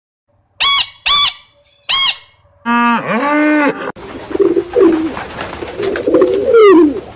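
Animal calls played one after another: three short, high chirps, then a longer, lower call about three seconds in, then several overlapping calls that glide up and down in pitch.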